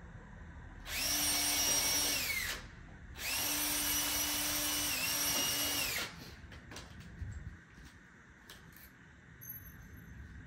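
Cordless drill running at a steady speed in two bursts, one of about a second and a half and one of about three seconds, as it works into a wooden board, its whine falling away as the trigger is released. A few light clicks and knocks follow.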